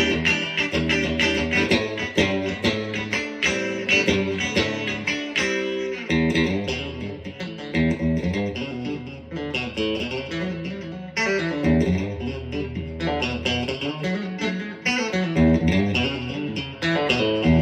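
PRS SE Swamp Ash Special electric guitar played on its bridge pickup alone in single-coil mode: quick picked single notes and chord fragments. Near the end a chord is struck and left ringing.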